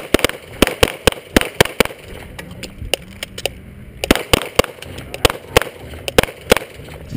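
A rapid string of pistol shots from two shooters firing at the same time, with a brief lull about three and a half seconds in.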